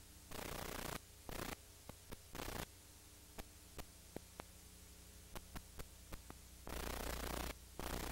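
Recording noise on an old videotape soundtrack: a steady electrical hum, with bursts of hiss that cut in and out abruptly and scattered sharp clicks in the middle.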